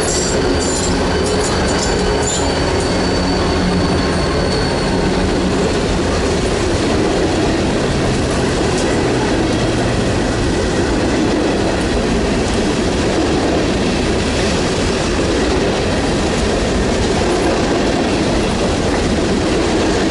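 Freight train rolling past: a loud, steady rumble of steel wheels on the rails, with a thin wheel squeal and a few clicks over the first few seconds.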